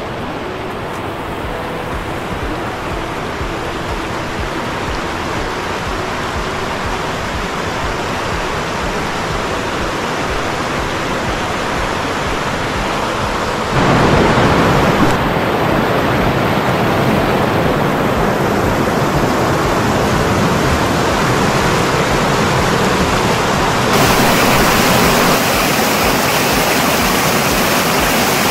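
Fast-flowing river water rushing, a steady loud noise. It steps up suddenly about halfway through and gets brighter again near the end.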